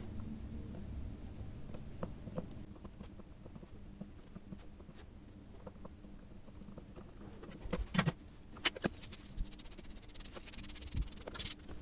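Faint scattered clicks and taps of small tools and a circuit board being handled on a workbench, with a few sharper ticks about eight seconds in and again near the end, over a low steady hum.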